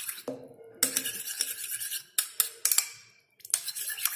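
A spoon stirring honey into onion juice in a small bowl, clinking against the bowl again and again at an uneven pace, with a short pause about three seconds in.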